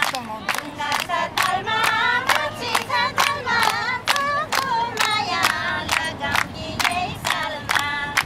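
A group of people singing a Nepali lok dohori folk song together, with steady hand-clapping keeping the beat at about three claps a second.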